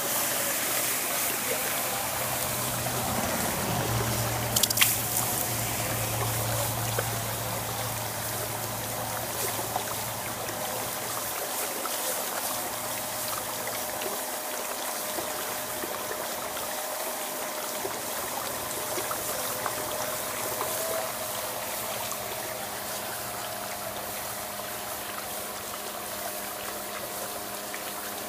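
Water running and trickling steadily over a hot anvil as it is quenched to harden it. A couple of sharp clicks come in the first five seconds.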